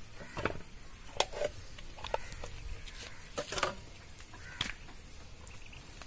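Scattered soft knocks and clicks, with a few wet squishing sounds, from steel bowls and wet cooked grain feed being scooped and handled by hand.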